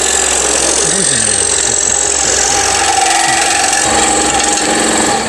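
Pegas 21-inch scroll saw running steadily, its reciprocating blade cutting an interior fretwork shape in a wooden trivet blank.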